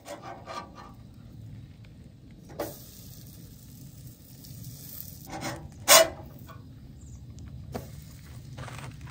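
Pancakes cooking on a camp stove: a steady low rush from the burner, with a few sharp clinks of utensil on pan, the loudest about six seconds in.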